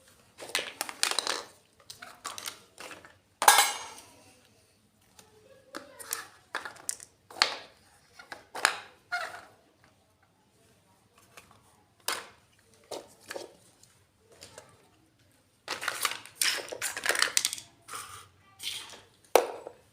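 Miniature toy kitchenware clinking and clattering as it is handled and set down, in irregular clusters of small sharp clicks. There is a quieter spell midway and a busier run of clatter near the end.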